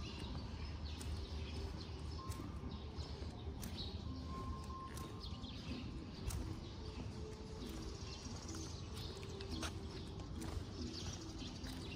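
Morning residential-street ambience: small birds chirping over a low steady rumble, with irregular footsteps clicking on the concrete road.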